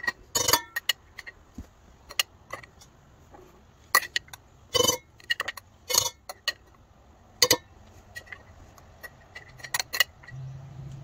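A metal slotted spoon clinking and scraping against the inside of a glass jar of water, in irregular sharp taps as seeds are scooped out. A low hum comes in near the end.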